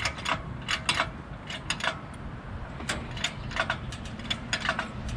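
Irregular metal clicks and clanks from an engine hoist and its lifting chain as it takes the weight of a big-block engine, a few clicks a second over a steady low rumble.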